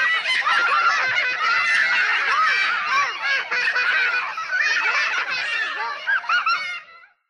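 Sound effect of many tiny, high-pitched voices laughing and giggling together, overlapping. It stops about seven seconds in.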